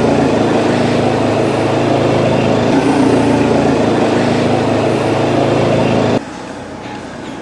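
An engine running steadily at an even speed; the sound drops off sharply about six seconds in.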